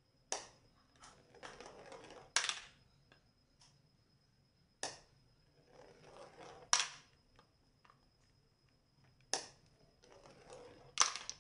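Glass marbles released one after another onto a plastic spiral slide, three times: each lands with a sharp click, rolls down the spiral with a soft rolling sound for about a second, and ends with a louder click as it drops into a plastic toy dump truck's bed.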